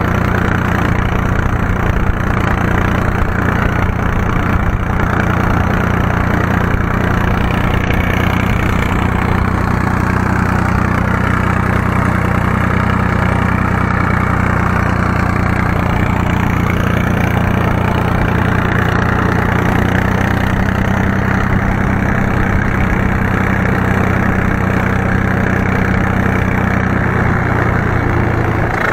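IHC McCormick 423 tractor's three-cylinder diesel engine running steadily, its pitch holding even throughout.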